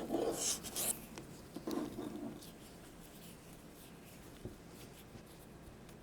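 A cable being handled and wrapped around itself by hand: rubbing and rustling of the cable, loudest in the first second and again around two seconds in, then quieter with one small click.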